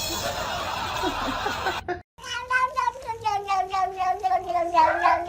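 A domestic cat yowling: one long, drawn-out call of about three and a half seconds that wavers and slowly falls in pitch. Before it, about two seconds of steady hissing noise end at an abrupt cut.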